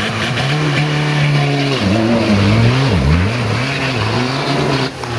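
Off-road trial buggy's engine under heavy load on a mud climb, held at steady high revs, then revving up and down several times with one deep dip about three seconds in.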